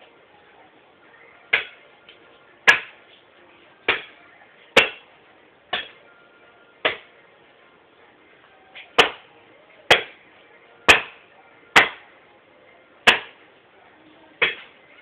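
Woodcutter's axe chopping into wood: about a dozen sharp blows, roughly one a second, with a short pause in the middle.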